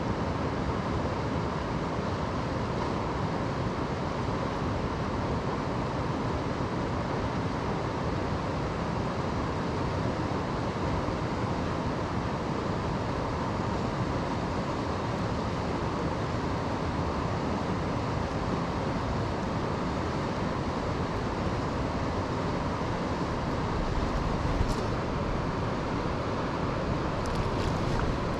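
River water running steadily, a constant rushing hiss, with a few faint clicks near the end.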